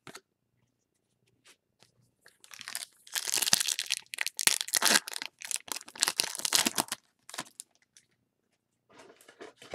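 Foil wrapper of a 2019 Topps Gallery trading-card pack being torn open and crinkled by hand. A dense run of tearing and crinkling starts about two seconds in and lasts about five seconds, followed by a few light clicks and a softer rustle near the end.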